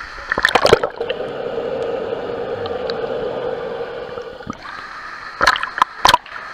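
Pool water splashing as the camera goes under, then a muffled underwater rumble and gurgle for a few seconds, then splashes again as it comes back up.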